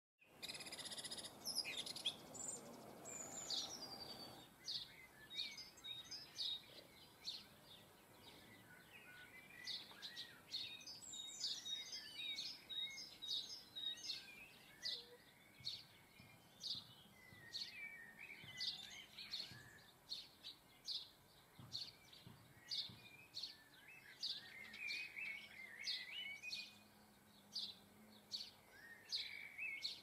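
Garden songbirds chirping and calling, many short high notes overlapping throughout, with a rushing noise during the first four seconds or so.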